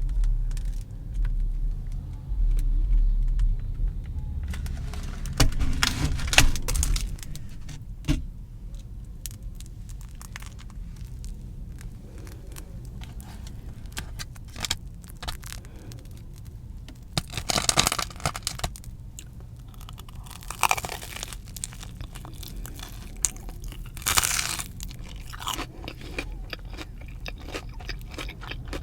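Close-up crunching and chewing as a deep-fried Korean cheese dog (corn dog) is bitten and eaten. About four loud crunchy bites are spread through, with quieter chewing between them over a steady low hum.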